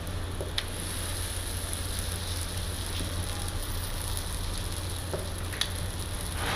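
Steady sizzling hiss of food frying, over a constant low hum, with a sharp click about half a second in and another near the end.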